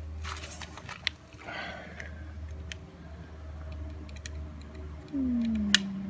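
Utility knife blade scraping and cutting into a worn rubber handlebar grip, with small clicks and short scratches. About five seconds in, a vehicle engine hum comes in louder, dropping in pitch and then holding steady.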